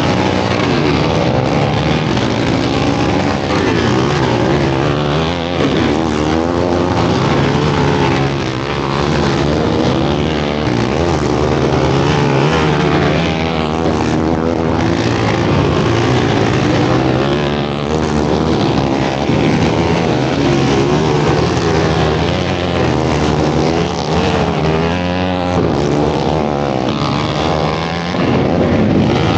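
Several racing quads' engines running on a dirt oval, their pitch rising and falling over each other as the machines rev through the turns and pass, without a break.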